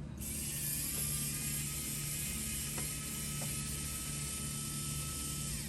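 Warrior compact cordless screwdriver's small battery motor and gearbox whirring steadily as it backs a screw out, running for about five seconds before winding down and stopping near the end.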